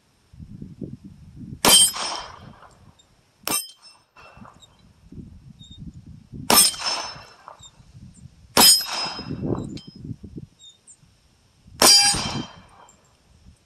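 Glock 27 pistol firing .40-calibre rounds at steel plates: four loud shots a couple to several seconds apart, each followed by the ring of struck steel, and a shorter, quieter crack about three and a half seconds in. Wind buffets the microphone between shots.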